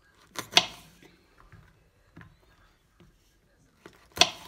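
Kitchen knife cutting through large green chillies and striking a wooden chopping board. Two sharp knocks come close together about half a second in, then a few soft taps, then another sharp knock near the end.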